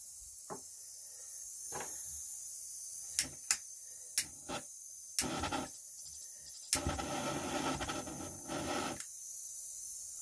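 Handling noise as a small pen-style butane torch is picked up and readied: about half a dozen sharp clicks from about three seconds in, then a couple of seconds of rubbing and scraping.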